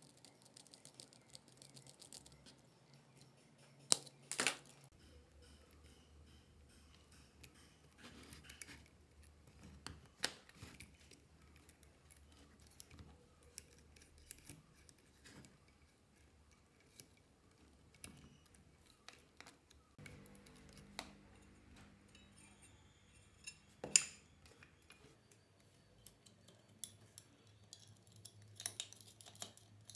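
Small metal parts being handled and fitted by hand: scattered light clicks and clinks of brass fittings, screws and aluminium pieces, with two louder clicks, one about four seconds in and one about two-thirds of the way through.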